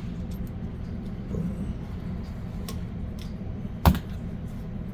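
Small clicks of hand work on electrical wiring, with one sharp knock near the end, over a steady low electrical hum.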